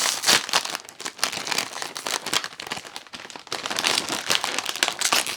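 Plastic snack bag crinkling and crackling in irregular bursts as it is opened and handled.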